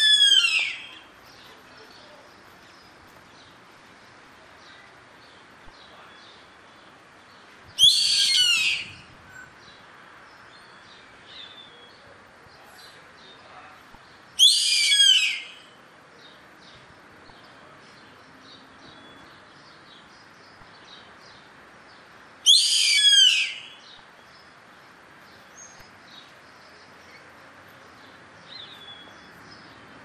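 Yellow-headed caracara calling: four calls about seven seconds apart, each a second-long run of high notes that fall in pitch. Faint small chirps sound in the background between calls.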